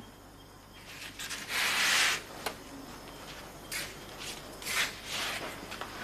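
Rustling and shuffling as a person gets up and walks across a room: a longer scraping rustle about two seconds in, a sharp click just after, then a few shorter shuffles.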